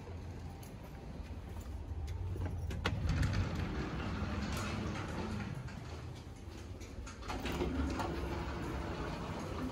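Steady low hum of traffic and building noise with an automatic sliding glass door. A sharp click comes about three seconds in, and near the end there are clicks and rattles as a keyed umbrella lock is handled.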